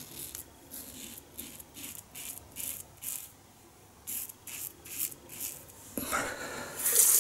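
A 1930s Gillette "New" Long Comb open-comb double-edge safety razor scraping through lather and stubble in a quick run of short strokes, with a pause about four seconds in. Near the end there is a knock and a tap is turned on, water running loudly into the sink.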